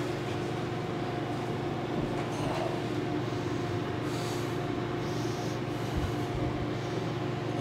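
A steady mechanical hum: a low drone with a couple of steady higher tones above it, unchanging throughout.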